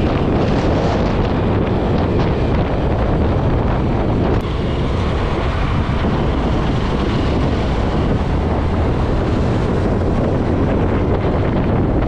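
Wind rushing over the microphone and road noise from a Honda Grazia 125 single-cylinder scooter ridden at speed, a steady roar. A brief click about four seconds in, after which it is a little quieter.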